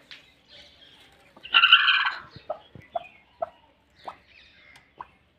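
Broody hen sitting on her eggs gives one harsh, loud squawk about a second and a half in, then a string of short single clucks, the sound of a hen disturbed on the nest.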